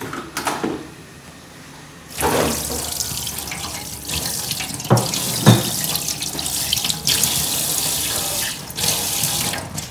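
Kitchen tap running into a stainless steel sink while a stone mortar (cobek) is rinsed under the stream; the water starts about two seconds in. A couple of knocks sound about halfway through.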